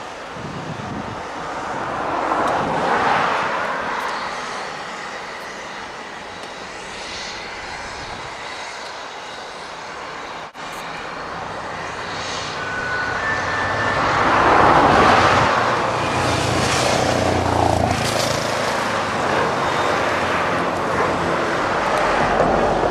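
GWR 'Dukedog' 4-4-0 steam locomotive 9017 pulling away with a train, its exhaust chuffing and blasting steam, the sound swelling and fading several times as it works. A brief dropout breaks the sound partway through.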